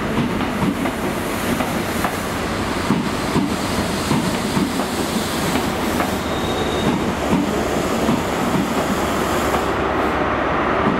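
High Speed Train coaches rolling past a station platform, wheels clicking over the rail joints with a steady rumble. The sound grows a little louder near the end as the rear Class 43 power car draws near.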